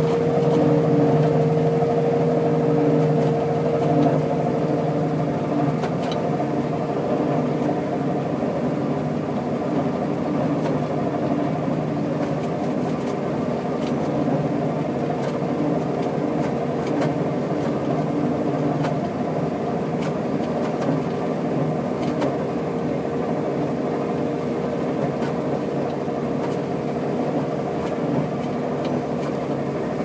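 Combine harvester running while cutting wheat, heard from inside its cab: a steady engine and machinery drone with a high whine that fades a little after the first few seconds.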